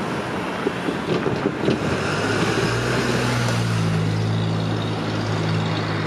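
Road traffic at a railway level crossing: a car driving over the crossing, with a few light knocks in the first couple of seconds, then a steady low engine hum from about two seconds in.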